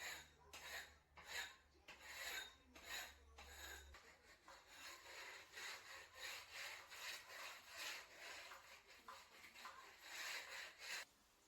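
A hand tool scraping back and forth in a steady rhythm of rasping strokes, about two a second, quickening slightly after about four seconds and stopping just before the end.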